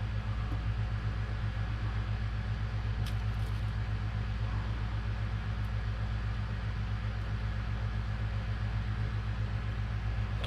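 Vehicle engine idling: a steady low rumble with an even throb, and a faint click about three seconds in.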